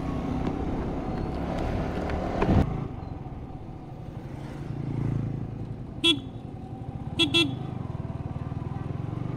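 Road vehicle engine running steadily on the move, with a thump about two and a half seconds in. A horn gives one short toot about six seconds in and two quick toots just after seven seconds.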